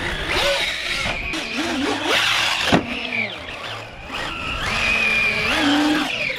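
Traxxas Rustler 4x4 VXL RC car's brushless electric motor whining up and down in pitch as it drives, with one sharp knock a little under three seconds in. The car is running with a broken bulkhead, which the owner suspects has also hurt the diff.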